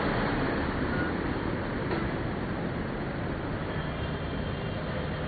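City buses driving through floodwater: a steady rush of churned, splashing water over a low engine and traffic rumble.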